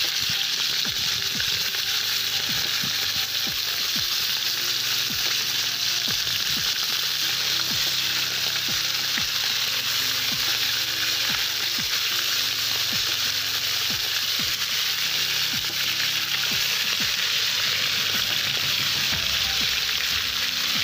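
Pork ribs sizzling and crackling in hot oil in a cast-iron kazan as pieces are laid in. It is a steady, loud hiss with many small pops throughout.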